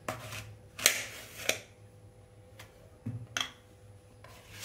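A kitchen knife slicing through an unpeeled apple on a plate: about five separate short cuts, in two clusters.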